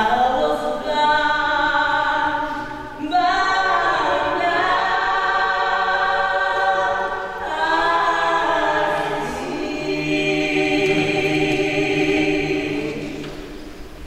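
Unaccompanied singing led by a woman's voice holding long notes in about three phrases, with other voices in harmony; it fades away near the end.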